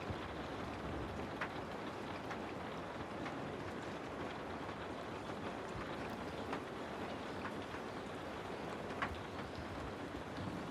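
Steady water noise with scattered light ticks, most like rain falling, continuous and even throughout.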